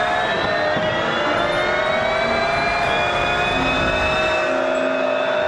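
Race car engine sound: a high, steady engine whine with a rough rumble beneath, slowly rising in pitch.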